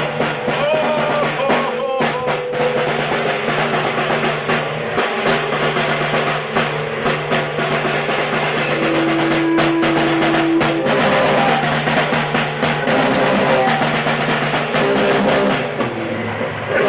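Live band music led by a drum kit played with rapid snare hits, over a steady low note. A single held note sounds for about two seconds, roughly nine seconds in.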